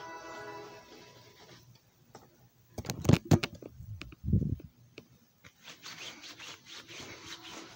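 Handling noise from a phone camera being moved about: a few loud knocks and rubs about three seconds in, a thump a second later, then light scratchy clicks. Music fades out in the first second or so.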